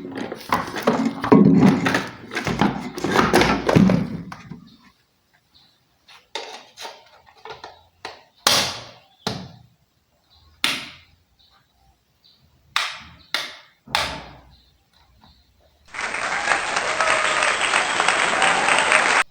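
A power tool running for the first few seconds while a wall switch is fitted, then a scatter of single knocks and clicks. A steady hiss starts about three seconds before the end and cuts off suddenly.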